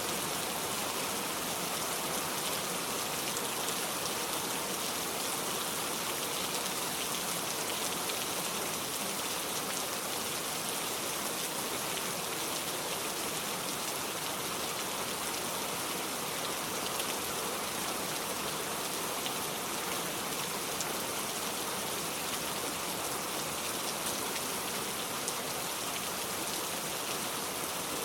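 Steady rain falling, a dense even hiss with faint patter of drops on a surface.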